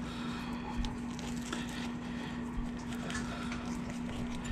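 A kitchen knife cutting around a soft, ripe red custard apple: faint scraping and small crackles as the blade works through the skin, over a steady low hum.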